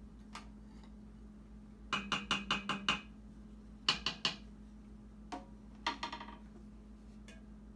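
A ladle clinking against the Instant Pot's metal inner pot as soup is served into a bowl. A quick run of about six ringing taps about two seconds in, two or three more about a second later, and a few lighter clinks after that.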